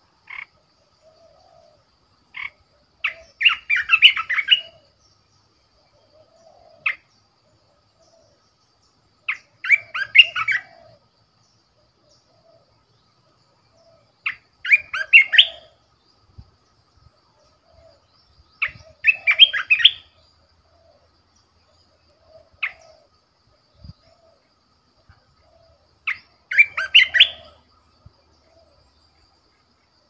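Caged decoy bulbul singing: five short, bubbly, warbling phrases, each about a second long and coming roughly every five seconds, with a few single sharp notes between them.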